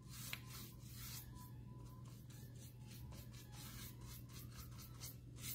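Small crafting brush scrubbing paint onto a painted picture frame in quick dry strokes, about four a second, to darken and antique the finish.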